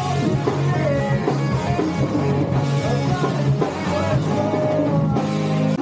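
Live rock band playing a song, with electric guitar and drum kit.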